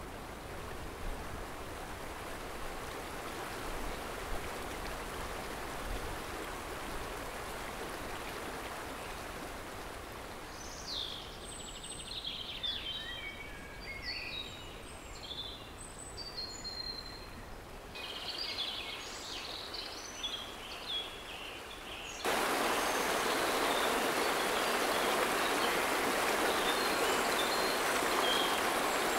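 Steady rush of a fast, muddy river running high, with small birds chirping in the middle stretch. About three-quarters of the way through it cuts to a closer, louder rush of churning river water.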